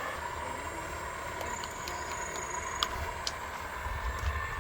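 Radio-controlled truck running: a steady motor whine over a low rumble, with a few sharp clicks about halfway through.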